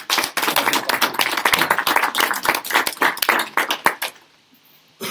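A small audience applauding, a dense run of hand claps that stops about four seconds in.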